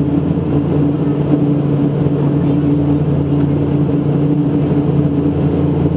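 Cabin noise of an Embraer EMB 120 Brasilia twin turboprop on approach: a steady drone from the engines and propellers, with a few constant low hum tones over a rushing background.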